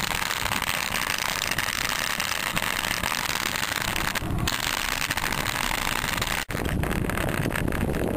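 Wind buffeting and crackling on a low-grade camera microphone while riding a fixed-gear bike. About six and a half seconds in, the sound drops out for an instant and comes back heavier and lower.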